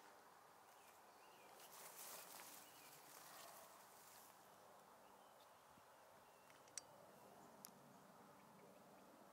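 Near silence: faint outdoor field ambience, with a brief soft swell of noise about two seconds in and two sharp ticks about seven seconds in.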